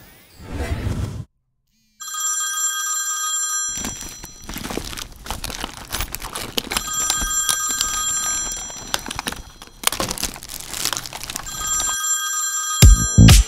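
A mobile phone ringtone ringing in three spells, inside a handbag, while the bag's contents are rummaged through with rustling and clatter. Near the end, loud electronic music with a beat comes in.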